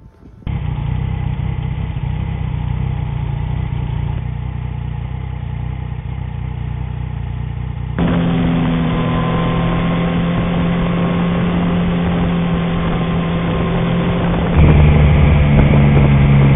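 Motorcycle engine running at a steady pace. The sound cuts abruptly to a louder engine with a different pitch about eight seconds in, and again, louder still, near the end.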